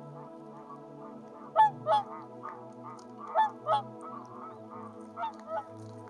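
Whooper swans calling: three pairs of honking notes about a second and a half apart, each pair fainter than the one before.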